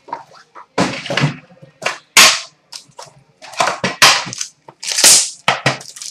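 Irregular sharp clacks, rustles and crinkles as an Upper Deck The Cup metal tin is opened: the lid is lifted off and set down on a glass counter, and the sealed card pack inside is handled and its wrapper crinkled.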